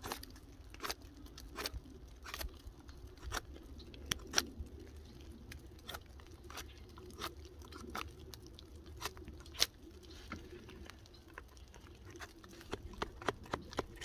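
Small D2 tool-steel axe-card blade, lashed onto a stick handle, skinning bark off a branch in short scraping strokes. It makes a crunch about every second, coming faster near the end.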